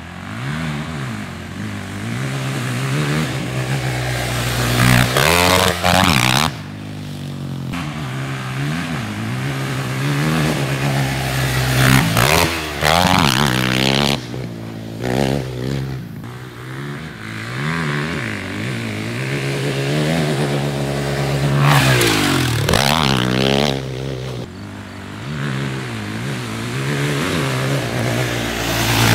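KTM 450 SX quad's single-cylinder four-stroke engine being ridden hard, revving up and dropping back again and again as the rider works the throttle through the gears.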